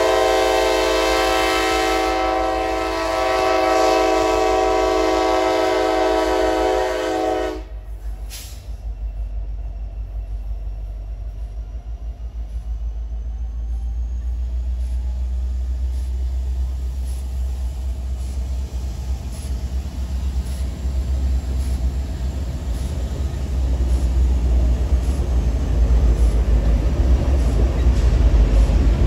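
Freight train diesel locomotive's air horn sounding one long chord of several notes, cutting off about seven and a half seconds in. Then the low rumble of the diesel locomotives and freight cars rolling past, growing louder, with wheels clicking over rail joints.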